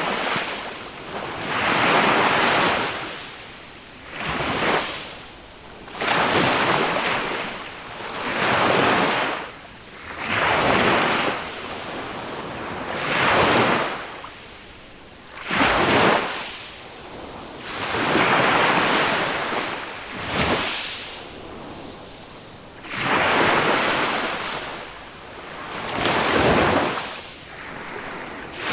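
Small waves of a calm Mediterranean sea breaking and washing up a sandy beach. One surge comes every two to three seconds, each swelling and then falling away.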